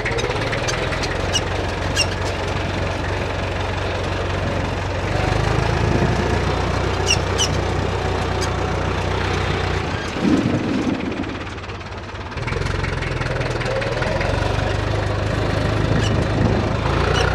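IMT 558 tractor's diesel engine running while driving on a gravel track, with light rattling clicks. About ten seconds in the engine note drops away for a couple of seconds, then picks up again.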